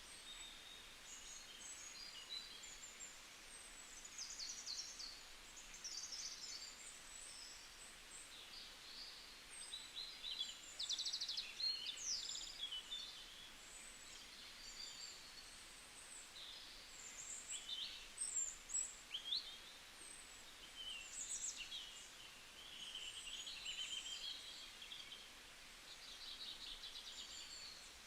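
Many birds singing and calling over one another, a mix of fast trills, short chirps and quick rising and falling whistles, faint against a soft steady hiss.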